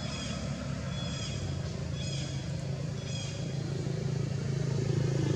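Steady low engine hum of a motor vehicle, growing louder near the end as it comes closer. Over it, a short, high, falling call repeats about once a second.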